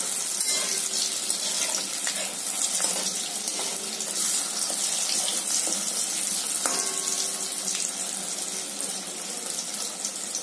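Hot oil sizzling steadily as soya-chunk fritters deep-fry in a steel wok.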